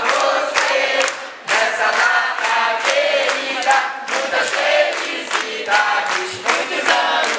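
A crowd of guests singing a birthday song together and clapping in time, about two claps a second.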